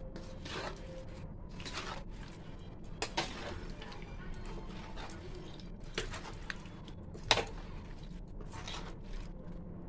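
Cut raw mango pieces being stirred into spice masala with a spoon in a large bowl: wet shuffling and scraping, with a handful of sharp clacks of the spoon against the bowl, the loudest about three-quarters of the way through.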